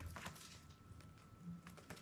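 Faint scattered clicks and taps from baby chicks pecking and scratching about, with no chirp.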